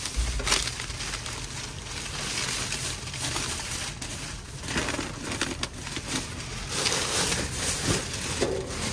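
Thin plastic trash bags rustling and crinkling in irregular bursts as a gloved hand rummages through them.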